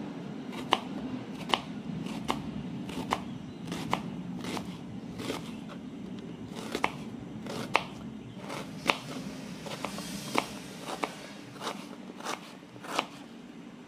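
Kitchen knife slicing through a half onion on a plastic cutting board, each cut ending in a sharp tap of the blade on the board, about one cut every three-quarters of a second.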